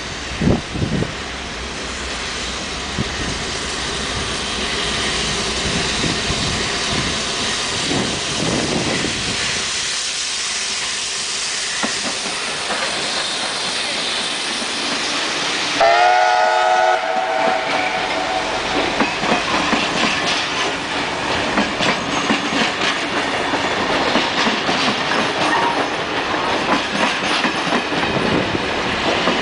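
Steam locomotive 3801, a NSWGR C38-class streamlined Pacific, approaching and passing with its train of heritage carriages, the rumble growing steadily louder. A train whistle sounds once for about a second and a half just past halfway, then the carriage wheels click rhythmically over rail joints as the train rolls by.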